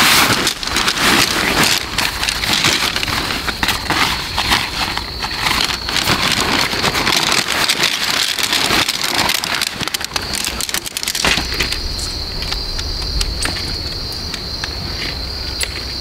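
Nylon fabric of an MSR Hubba Hubba tent, its coating broken down and sticky, rustling and crinkling as it is pulled out of its stuff sack and handled. Insects drone steadily and high in the background. After about 11 seconds the rustling gives way to scattered clicks and taps.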